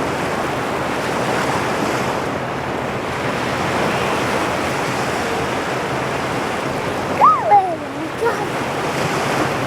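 Steady wash of waves on the shore with wind buffeting the microphone. About seven seconds in, a brief high cry glides downward.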